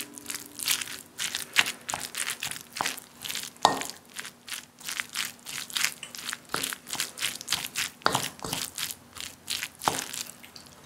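Wooden spoon mixing rice, fried egg and seasoned minced meat in a bowl: repeated short scraping and knocking strokes, a few a second.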